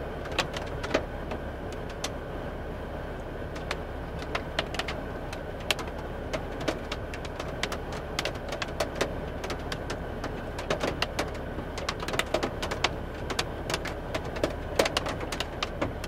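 Scattered large raindrops tapping irregularly on a vehicle's windshield and roof, heard from inside the vehicle, over a steady low rumble. These are the first drops ahead of a derecho squall line, and the taps come thicker in bunches near the middle and end.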